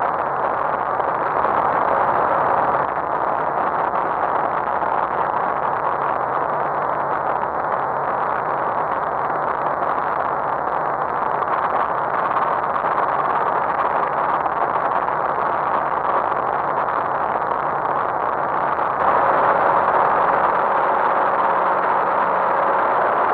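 Heli-Tech LH 212 ultralight helicopter in flight, heard from inside the cockpit: a steady, loud mix of engine and rotor noise. The level drops abruptly about three seconds in and jumps back up about nineteen seconds in.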